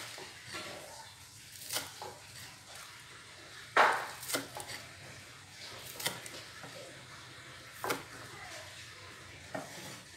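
Kitchen utensils knocking and clacking against cookware: a handful of separate sharp knocks a second or two apart, the loudest and longest about four seconds in.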